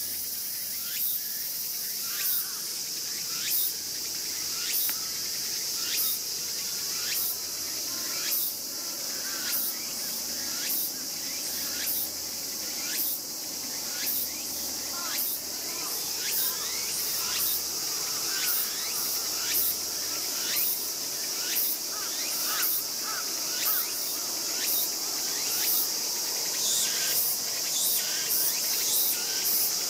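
Night insects: a steady high-pitched cricket trill, with a sharper chirp repeating about once a second, coming a little faster near the end.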